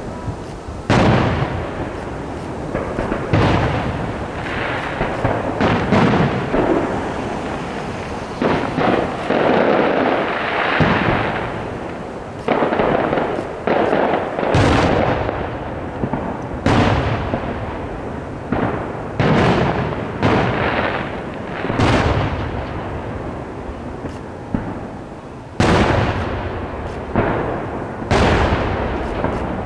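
Aerial firework shells bursting overhead: a steady series of loud booms, one every second or two, each trailing off in a rolling echo.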